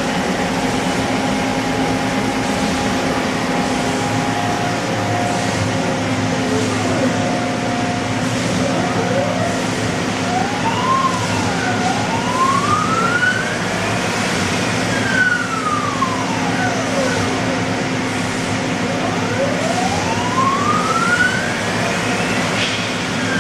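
Samsung SL45 CNC turning center's spindle drive running over a steady machine hum, its whine rising and falling in pitch several times in the second half as the spindle speeds up and slows down.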